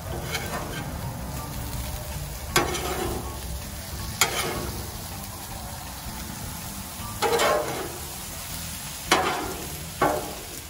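Sliced potatoes sizzling steadily in butter on the steel top of a Blackstone flat-top griddle. A metal spatula scrapes and clacks against the plate about five times as it turns and spreads them.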